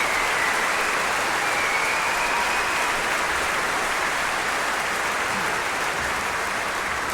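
Concert-hall audience applauding, a steady, dense clapping.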